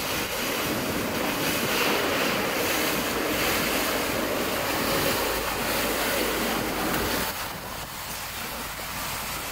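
Wind buffeting the microphone over rushing water, a steady noise that drops a little about seven seconds in.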